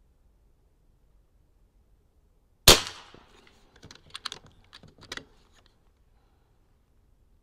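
Niksan Tacto-S .22 PCP air rifle firing a single sharp shot, followed about a second later by a run of small metallic clicks as the action is cycled for the next pellet.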